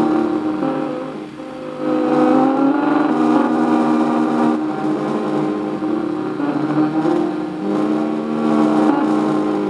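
Computer-synthesized drone of several held, buzzy tones that shift and glide in pitch, generated from the tracked movements of ants in sand. It briefly drops in level about a second in.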